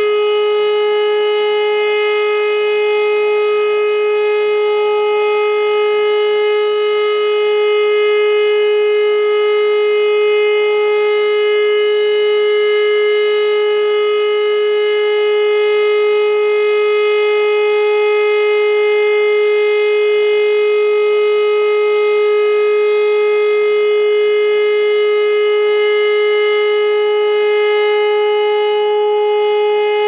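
E57 electromechanical civil-defence siren sounding one loud, steady tone that holds the same pitch without rising or falling. This is the German 'Entwarnung' all-clear signal, a one-minute continuous tone.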